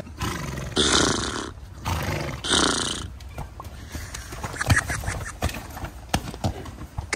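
A horse gives two loud, rough calls, each under a second, in the first three seconds, then scattered dull thuds follow as it bucks and kicks on soft, muddy ground.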